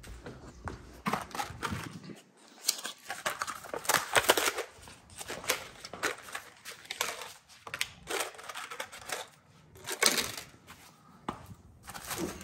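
Irregular rustling, scraping and handling noises from things being picked up and moved about, with a few louder bursts.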